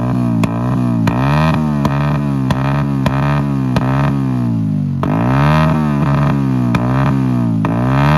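Hero Splendor motorcycle's single-cylinder four-stroke engine breathing through a modified, free-flowing exhaust silencer. The throttle is blipped again and again, so the pitch repeatedly falls and rises, with sharp pops from the silencer.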